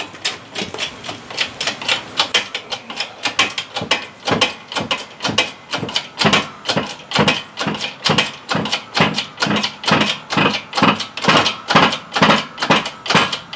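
Hydraulic shop press being hand-pumped: a quick, even run of sharp clicks, about three strokes a second, as the wheel hub is pressed into a new front wheel bearing.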